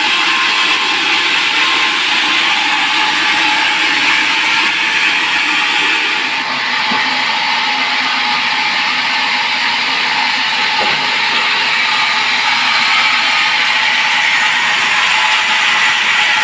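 Sawmill saw running steadily and loudly at work on a teak log, dipping briefly about six seconds in.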